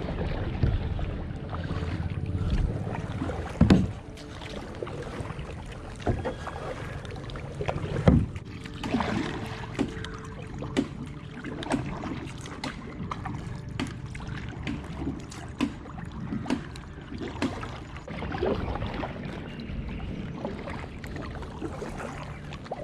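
Kayak paddle strokes dipping and splashing in river water, roughly one a second, with a few sharper knocks and some wind on the microphone in the first few seconds.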